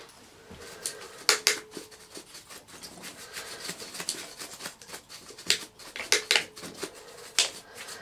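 Hands working parts on the metal chassis of a vintage Hoover Senior upright vacuum: scattered light metallic clinks and knocks, with scraping and rubbing in between.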